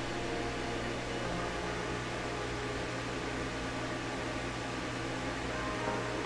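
Steady background hum and hiss with no events: room tone.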